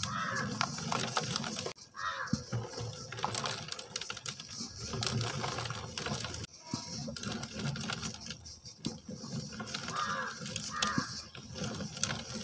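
Dry pure-cement lumps being crushed and crumbled by hand, with irregular gritty crackling and many small clicks as pieces break and fall onto a plastic strainer.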